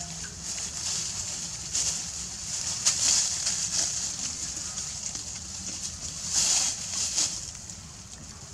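Dry leaf litter rustling and crackling as young monkeys move and forage through it, in several short bursts, the loudest about six and a half seconds in, over a steady high hiss.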